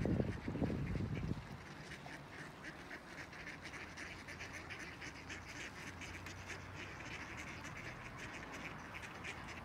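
A flock of mallards quacking, many short calls overlapping in quick succession. A low rumbling noise is loudest during the first second or so, then drops away.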